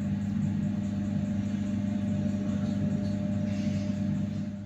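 Steady low engine drone of a ChME3 diesel shunting locomotive working a short freight train, with the wagons rolling slowly past on the rails.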